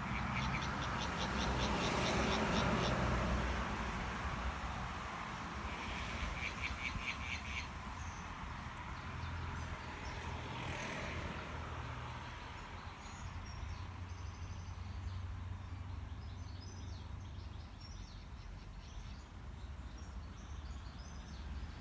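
Frogs calling in two long trains of rapid pulsed croaks, one in the first three seconds and another about six seconds in, then fainter scattered chirps through the rest. A broad rush like passing traffic swells and fades under the first calls and again near the middle, over a steady low rumble.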